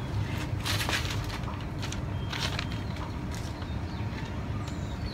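Sheets of newspaper rustling and crinkling in short bursts as they are handled and pressed into place, over a steady low background rumble.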